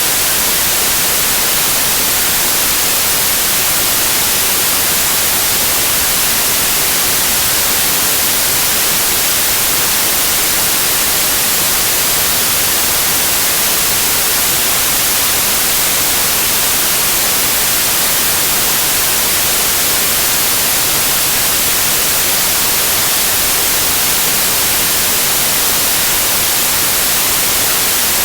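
Continuous white noise like TV static: a steady, even hiss with no change in level.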